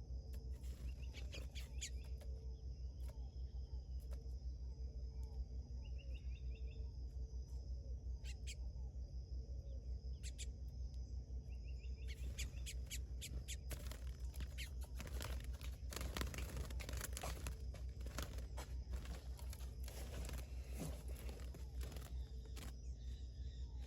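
Curió (chestnut-bellied seed-finch) giving a few short chirps over a steady low hum, with many sharp clicks that grow denser about halfway through.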